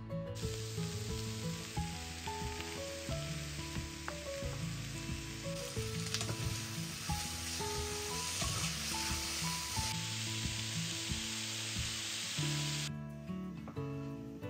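Food sizzling in a frying pan, the hiss swelling for a few seconds in the middle and stopping about a second and a half before the end, with background music playing a simple melody throughout.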